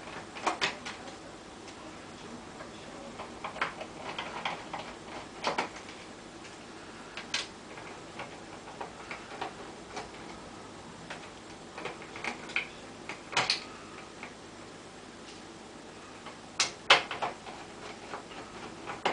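T10 Torx screwdriver working screws out of a Bang & Olufsen BeoSound Century's plastic casing: scattered light clicks and ticks. A few sharper plastic knocks come as parts are handled, the loudest pair near the end.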